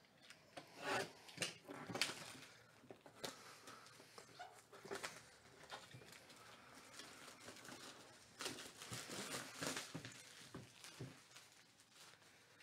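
Faint handling noises of a box being moved and set on a table: scattered soft knocks and clicks, with a longer stretch of rustling about two-thirds of the way through.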